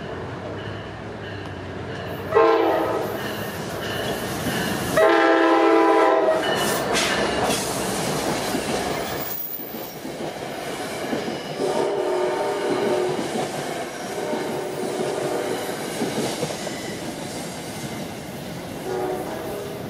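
Safetran hybrid electronic crossing bells dinging steadily while a New Jersey Transit train led by an Alstom PL42-AC diesel locomotive sounds its horn and passes over the crossing. There is a short horn blast about two seconds in, then a longer, loudest blast about five seconds in. After that comes the rumble and clickety-clack of the passing coaches, with more horn sounding around twelve seconds.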